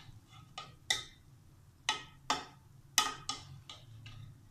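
A serving spoon clinking and knocking against the metal karahi of finished biryani as the rice is opened up and mixed. There are about nine sharp knocks with a brief ring, the loudest about one, two and three seconds in.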